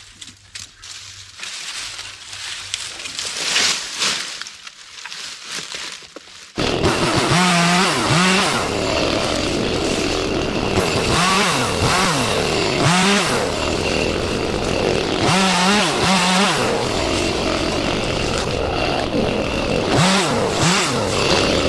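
Rustling and scraping in brush, then about six and a half seconds in a chainsaw starts up loudly and runs on, its pitch rising and falling again and again as it is revved while cutting branches.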